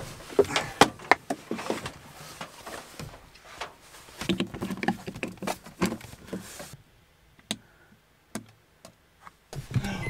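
Knocks and clatter of a microwave oven being lifted and set down, then a few isolated sharp clicks as its mains plug is pushed into a portable power station's socket.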